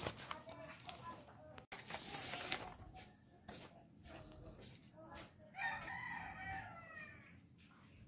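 Plastic bubble wrap and packaging crinkling and rustling as it is handled, loudest about two seconds in. A rooster crows once for about two seconds in the second half.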